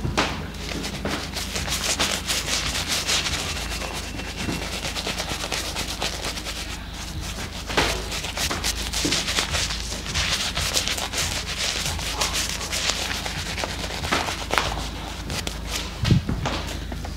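Shaving brush scrubbing soap lather into a thick beard, its bristles rasping continuously, with a few louder knocks in the middle and near the end.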